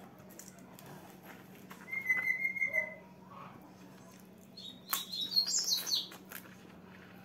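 A caged pet songbird whistling and chirping: one held whistled note about two seconds in, then a quick burst of high chirps around five seconds in.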